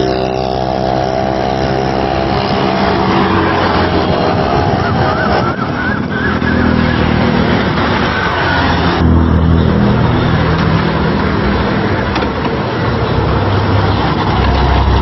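Motorcycle engine running among road traffic, with a steady engine note for the first few seconds that then shifts in pitch.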